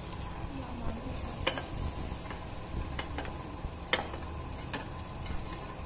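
Paneer frying in oil in a pan, with a spatula clicking against the pan about five times.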